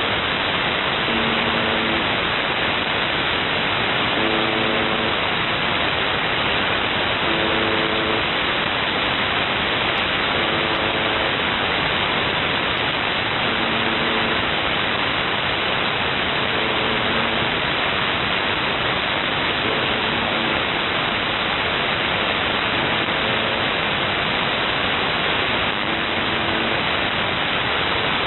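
Shortwave radio static: a steady hiss, with the UVB-76 "Buzzer" station's buzz tone coming through faintly under it, each buzz about a second long and repeating roughly every three seconds.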